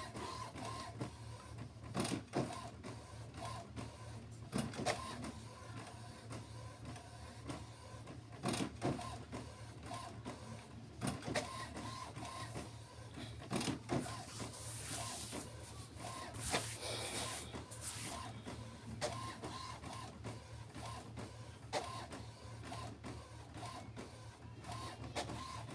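HP Officejet Pro 8600-series inkjet printer printing its alignment page: irregular clicks and knocks of the ink carriage and paper feed, with a few seconds of higher hissing a little past halfway.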